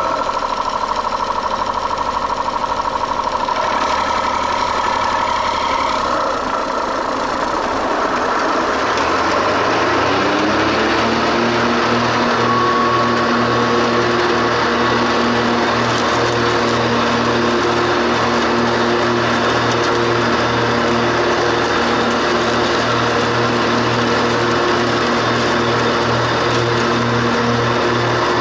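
Ride-on lawn mower engine running. It speeds up about nine to eleven seconds in, then holds a steady, evenly pulsing note.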